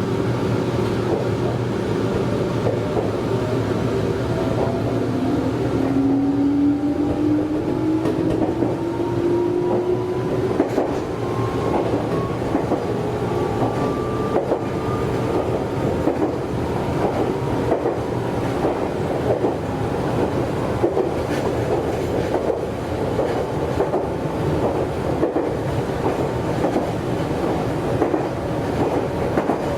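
Meitetsu 100 series electric commuter train running, with its wheels clacking over the rail joints. From about six seconds in, the motors' whine rises steadily in pitch for about ten seconds as the train picks up speed.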